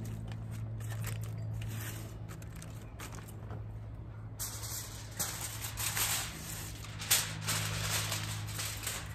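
Aluminum foil crinkling and rustling as a sheet is handled and folded, becoming louder and more crackly about halfway through, over a steady low hum.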